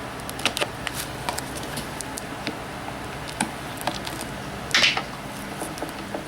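Plastic shrink-wrap on a Blu-ray box set being cut and handled: scattered small clicks and crackles, with one louder rustling crinkle near the end.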